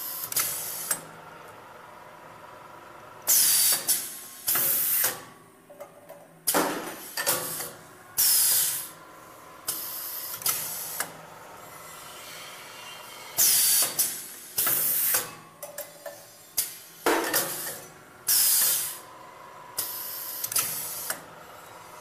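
Pneumatic cylinders on an automated stamping die cycling: sharp hisses of compressed air exhausting from the valves, with clicks and clunks of the tooling, in a pattern that repeats about every ten seconds over a faint steady machine hum.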